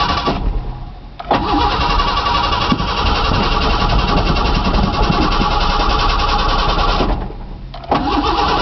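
Starter cranking a Ford Ranger's 2.9-litre V6 for about six seconds without it catching, then a dip and a second crank starting near the end. It is a no-start after two months sitting, which the owner puts down to a distributor problem, and the battery is getting weak.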